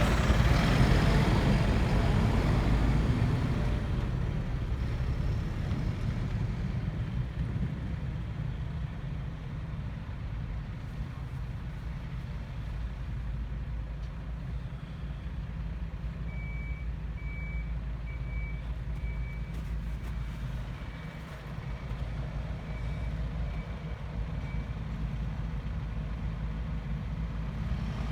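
Mercedes-Benz Atego truck's diesel engine running steadily, easing off in loudness over the first several seconds. About halfway through, a reversing alarm sounds a string of short high beeps, a little more than one a second, for about eight seconds.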